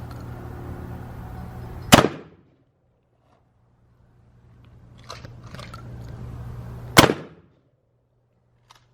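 Two shotgun shots about five seconds apart, each a single loud blast.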